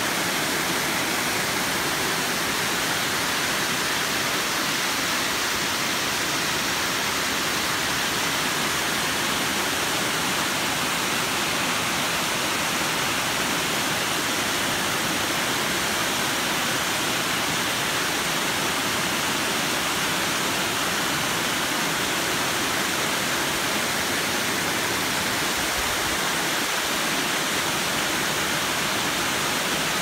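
Water from a small waterfall rushing and splashing down a rocky cascade into a pool, a steady, even rush that does not change.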